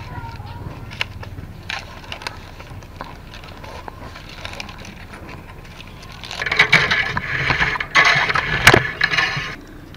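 Handling of a woven bamboo basket being bound with wire: light scattered clicks and ticks of wire, then, about six seconds in, roughly three seconds of loud scraping and rustling as the woven bamboo rubs right against the microphone, with one sharp click near the end.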